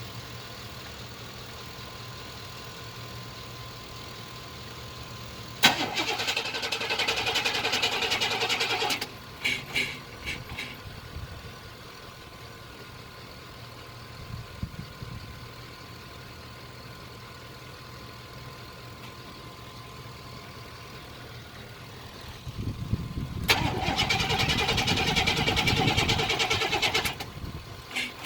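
1999 Chevy Tahoe's engine being cranked twice, a few seconds each time, with the starter turning it over roughly and the engine failing to keep running; the second attempt has a deeper rumble before it stops. A faint steady hum and a thin steady tone run underneath.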